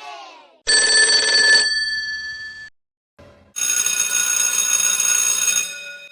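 Two bursts of bell-like electric ringing, each about two seconds long, the second brighter and buzzier, with a short gap between. A falling sound fades out at the very start.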